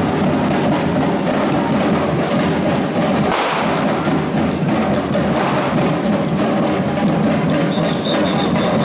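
Batucada samba percussion group drumming: a dense, steady rhythm of many drums with sharp hits. A high, piping tone sounds in short pulses near the end.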